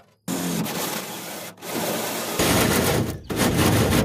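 Cordless drill running a 1 3/8-inch hole saw through the aluminum top of a jon boat bench: a steady grinding cut. It pauses briefly twice and bites harder, with a deeper sound, in the second half.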